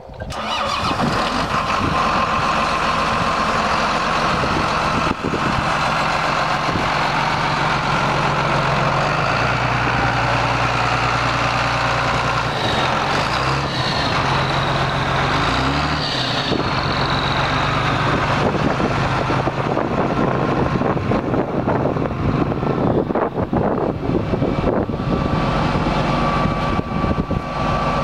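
Diesel engine of a 2003 John Deere 8120 MFWD tractor running steadily, its pitch shifting a few times between about ten and seventeen seconds in.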